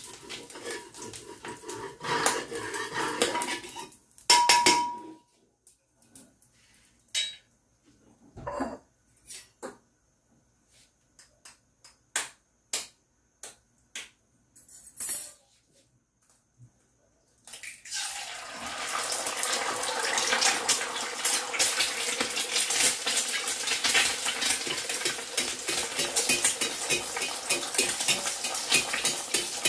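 A metal spatula scrapes and clatters in a black wok, then a stretch of sparse light taps and clicks. About eighteen seconds in, a sudden loud sizzle starts as an egg begins frying in the hot wok, and the crackling continues steadily.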